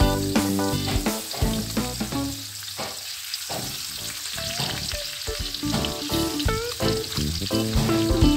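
Masala-coated fish sizzling as it shallow-fries in hot oil in a steel frying pan, with background music playing over it.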